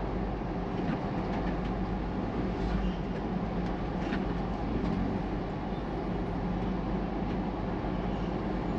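Steady engine and road noise of a car moving slowly in heavy city traffic, with a low hum and a few faint clicks.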